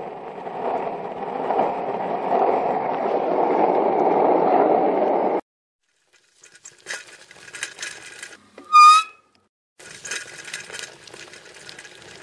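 Dubbed sound effects: skateboard wheels rolling, growing louder, then cutting off suddenly about five seconds in. Then a bicycle's light clicking and rattling, broken by one short, loud, wavering squeak a little past the middle.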